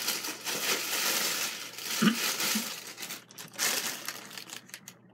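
Plastic shopping bag crinkling and rustling as it is handled and opened: dense for about the first three seconds, then in short scattered rustles.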